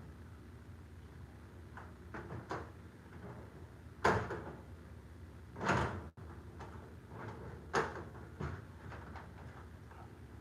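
A newly fitted garage door lock and handle being turned and tried out, making a series of separate metal clicks and clunks. The loudest clunk comes about four seconds in, with another drawn-out one soon after and a sharp one near eight seconds.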